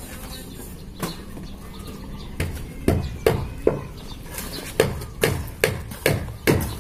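Repeated sharp knocks, a few at first and then about two or three a second from about three seconds in, as fresh concrete is poured and worked into a wooden column formwork.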